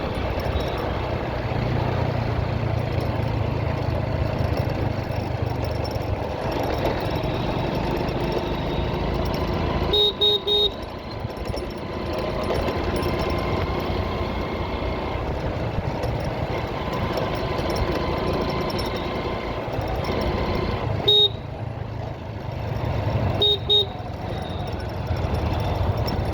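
Motorcycle running steadily through traffic, with engine and road noise. Short horn beeps cut through: three quick ones about ten seconds in, a single one about twenty-one seconds in, and two more about two seconds after that.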